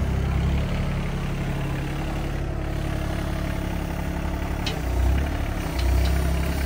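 Excavator engine running steadily while digging out, swelling louder twice in the second half as it takes load, with a brief light knock a little after four and a half seconds in.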